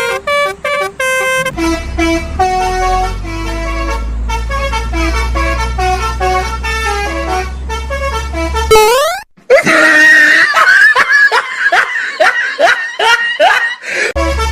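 Telolet-style musical bus horn playing a tune of short notes over a low steady hum. After a brief break about nine seconds in, it gives a string of quick rising whoops.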